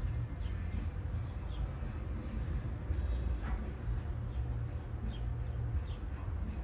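Small birds chirping in short, repeated, falling calls over a steady low rumble.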